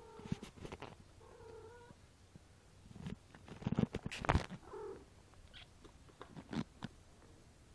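A cat purring steadily, with a short chirping call about a second and a half in and another just before five seconds. Knocks and rubbing right at the microphone, loudest about three to four and a half seconds in, with a few lighter clicks elsewhere.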